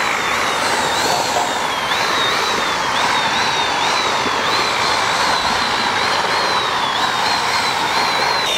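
Handheld electric paddle mixer (the kind used for mixing puttu flour) running steadily, its stirring rod churning a thick milkshake mix in a large aluminium pot. A high motor whine keeps dipping in pitch and springing back up about twice a second over the sloshing churn.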